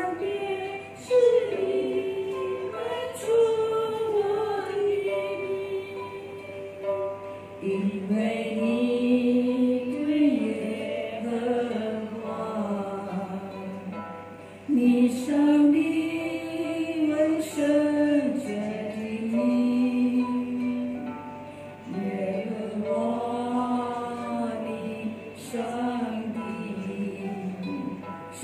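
Women singing a Chinese worship song to their own harp accompaniment, the sung melody carried over plucked harp notes.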